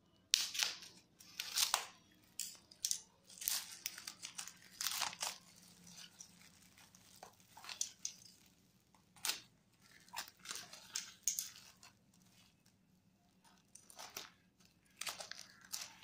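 Clear plastic wrapping around a paperback book being cut with scissors, then torn and crinkled off by hand, in many short, irregular bursts.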